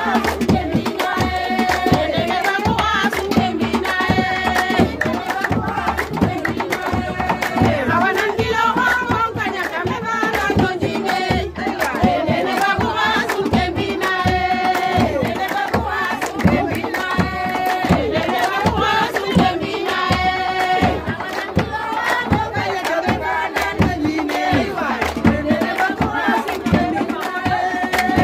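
Music: a sung melody over fast, busy hand-drum percussion.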